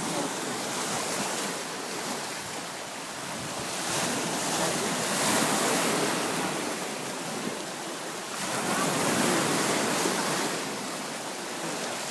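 Sea waves washing onto a beach, the surf rising and falling in two surges about four seconds apart.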